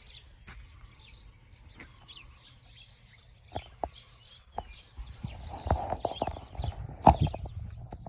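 Sparrows chirping faintly, many short high chirps. Through the second half, irregular clicks and knocks close to the microphone, the loudest about seven seconds in.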